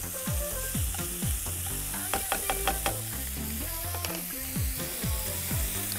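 Smoked pancetta sizzling as it browns in a dry nonstick pan in its own fat, with a spatula stirring it and then left to fry. Background music with a steady beat plays under it.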